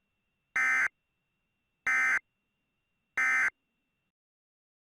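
Emergency Alert System end-of-message (EOM) signal: three short, identical bursts of digital SAME data tones, evenly spaced about a second and a quarter apart. They mark the end of the alert.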